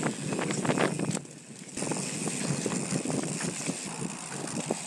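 Mountain bike riding fast on a dry dirt trail: steady tyre and trail noise with wind on the mic, and frequent small rattles and knocks from the bike over bumps. It drops briefly quieter about a second in.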